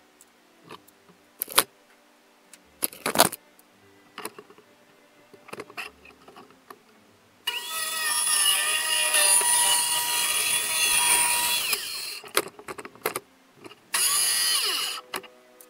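A few sharp knocks, then a corded circular saw running through plywood for about four seconds and winding down with falling pitch. It runs again briefly near the end.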